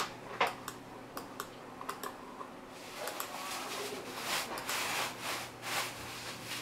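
Scattered small plastic clicks from a computer mouse operating the TV box menus, then a few seconds of soft rubbing and handling noise.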